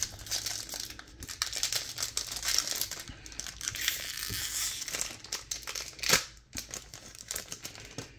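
Foil wrapper of a Topps Chrome trading-card pack being torn open and crinkled by hand, a dense run of sharp crackles, with one louder crackle about six seconds in.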